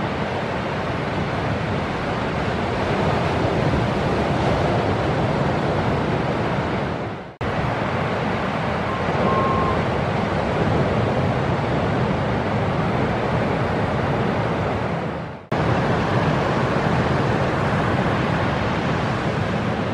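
Ocean surf breaking, a steady rush of waves and whitewater with wind buffeting the microphone. The sound fades away and cuts back in abruptly twice, about seven and fifteen seconds in.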